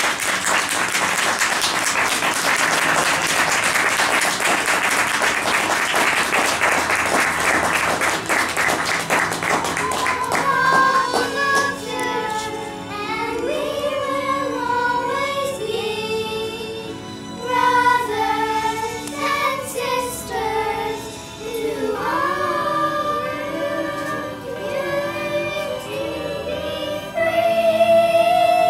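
Audience applauding for about the first ten seconds, dying away as a group of young cast members begins singing together; the group singing carries on to the end.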